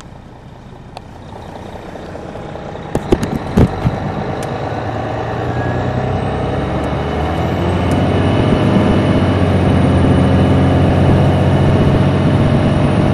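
Cabin sound of a 2002 MCI D4000 coach with a Detroit Diesel Series 60 diesel, the engine running under way and growing steadily louder over the first eight seconds, with a high whine that rises and then holds steady. A few sharp clacks come about three to four seconds in.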